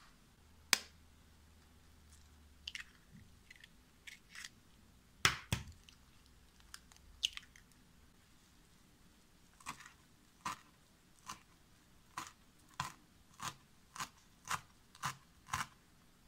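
A kitchen knife chopping fresh parsley on a bamboo cutting board, in regular strokes about two a second through the second half. Before that come a few scattered sharp taps and clicks against a glass mixing bowl, the loudest about five seconds in.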